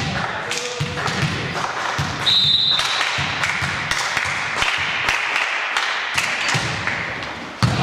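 Basketball bouncing on a hard court, a run of bounces about two a second over the general noise of a hall, with a short high squeak about two seconds in.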